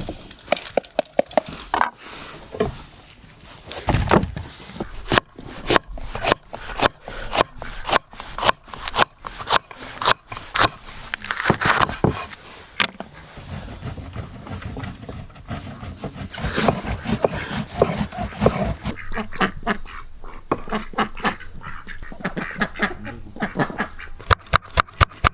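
Knife chopping on a wooden board in sharp, regular strokes about two a second, quickening near the end.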